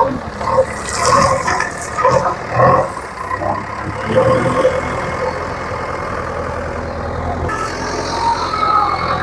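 JCB 3DX backhoe loader's diesel engine running steadily, with some irregular clatter in the first three seconds and a hiss joining about seven and a half seconds in.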